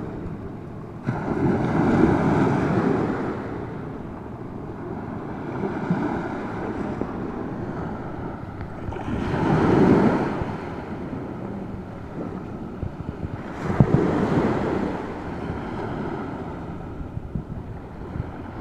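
Small surf washing onto a shell-covered beach, mixed with wind buffeting the microphone. The wash swells louder a couple of seconds in, around the middle and again a few seconds later.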